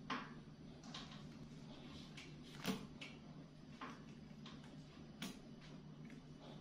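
Soft, irregular strokes of a marker pen scratching on paper as a picture is coloured in, over a faint steady hum.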